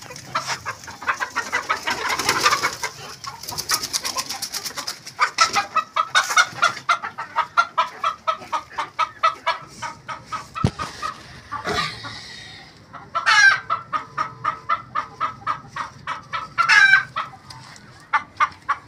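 Chicken clucking in long fast runs, several clucks a second, with two louder drawn-out calls near the end. Straw rustles as it is pulled out near the start.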